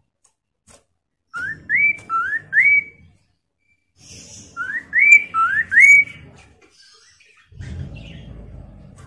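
Poksay mandarin laughingthrush whistling twice: two loud phrases of four quick rising notes each, a few seconds apart. A low rustle follows near the end.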